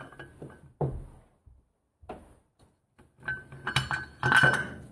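Metal parts of a Ducati 899 Panigale cylinder head clinking as the central camshaft drive gear is worked loose by hand: a sharp knock about a second in, a quiet pause, then a run of clinks with a light metallic ring near the end.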